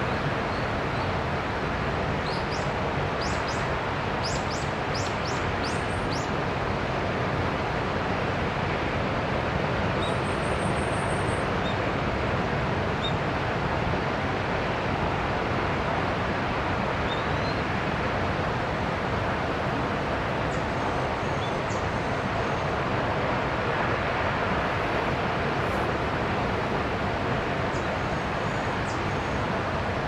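Steady rushing of a tall waterfall pouring down a granite cliff, heard from far across a valley, with a few brief high bird chirps about two to six seconds in and a few more later.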